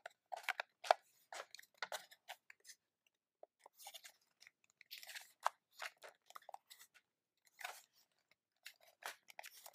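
Plastic battery cover of a hobby RC transmitter being slid back into place and the transmitter's plastic case handled: scattered small clicks and scrapes, with a short lull about three seconds in.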